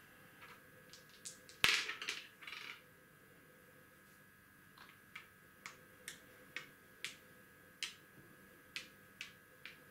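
Two dice thrown onto a wooden backgammon board, a sharp clack and a brief rattle as they settle about a second and a half in. From about five seconds in, a wooden checker is tapped on the board roughly twice a second as it is moved along point by point.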